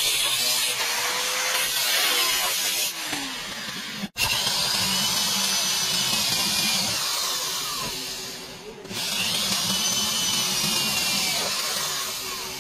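Corded electric drill running and drilling into the steel sheet metal of a car's rear quarter panel seam. It eases off briefly about two-thirds of the way through, then runs again.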